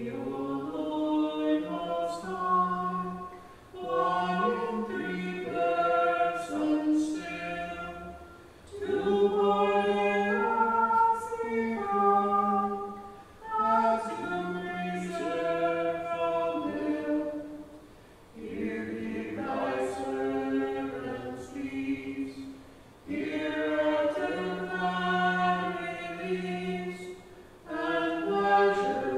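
Church choir singing unaccompanied liturgical chant, in phrases of a few seconds each with brief breaths between them.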